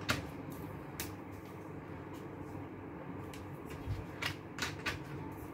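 Light plastic clicks from double-ended brush pens knocking against each other and their plastic case as one pen is picked out and handled: a single click near the start, another about a second in, and a quick cluster of three or four near the end.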